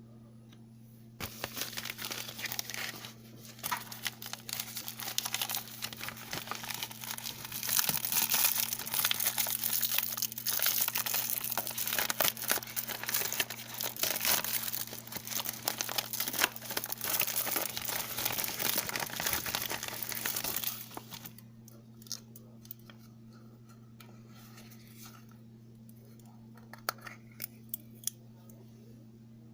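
Parcel packaging being torn open and crinkled by hand: a dense run of crackling and tearing that stops about 21 seconds in, followed by a few scattered clicks and rustles. A steady low hum runs underneath.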